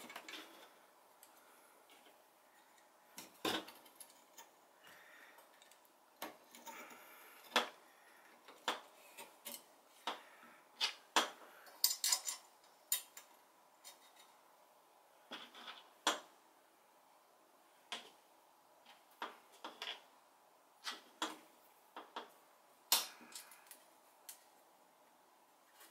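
Scattered light clicks and taps of small gun parts being handled as spacers and screws are fitted to a quad rail on a Remington 870 shotgun's receiver, irregular and busiest in the first half.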